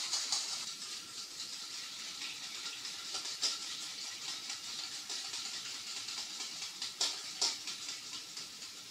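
Small whisk stirring a thick cream in a stainless steel bowl: a steady swishing scrape with a run of small clicks, and a few sharper clinks of metal on the bowl, one about three and a half seconds in and two close together near the end. The stirring is kept up without a break so the beeswax-oil and water emulsion sets into a homogeneous cream as it cools.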